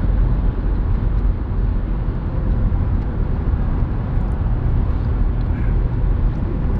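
Steady road and engine noise inside the cabin of a moving car, a low rumble.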